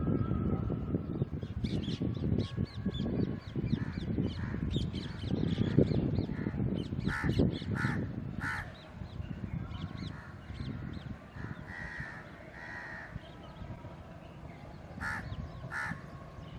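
Crows cawing repeatedly over the low rumble of a passenger train's coaches rolling past. The rumble fades about nine seconds in as the last coach clears, leaving the caws, with three close together around the middle and two more near the end.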